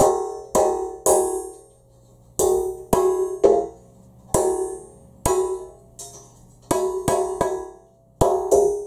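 Heavy hammer striking a stiff stainless-steel wire on a length of steel rail used as an anvil, bending it into shape. About a dozen irregular blows, each ringing out with a clear metallic tone that fades quickly.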